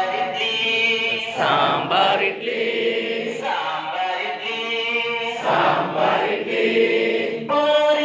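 A group of adults chanting a rhyme together in unison, with notes held for about a second at a time.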